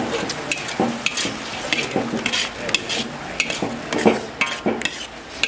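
Metal ladle scraping and clinking against an aluminium wok in irregular strokes, stirring a thick sweet-and-sour sauce with pineapple chunks.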